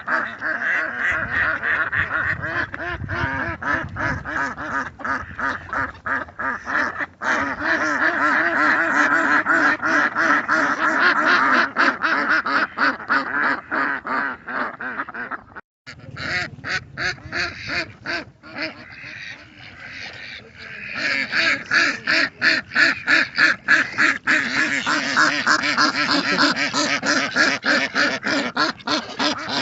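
A flock of ducks quacking continuously, many rapid calls overlapping. There is a brief break about sixteen seconds in, after which the calling grows louder.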